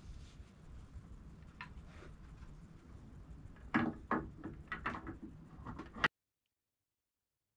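Metal support rods being slid through the cast aluminium base of a DeWALT DWS779 miter saw, giving a run of light clicks and knocks in the second half before the sound cuts off suddenly.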